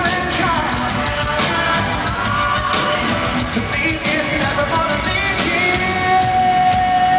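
Rock band playing live, with bass guitar and drums under a sung vocal, and a long held note near the end.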